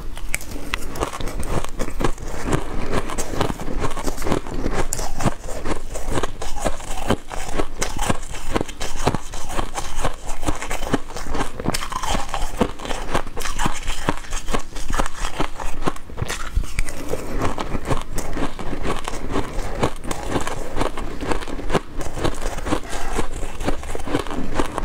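Close-up crunching of crushed ice being bitten and chewed, a dense run of crisp crunches.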